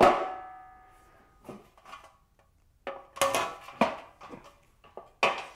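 Painted sheet-metal rod cover of a height-adjustable workbench clanking as it is handled, the first strike ringing with several tones that fade over about a second. A few light knocks follow, then a cluster of clatters about three seconds in as the cover is lowered over the aluminium connecting rod, and another knock near the end.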